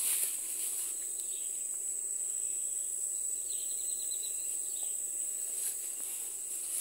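Insects in the undergrowth droning steadily at a high pitch, with a lower trill of rapid pulses joining in briefly a little after three seconds in.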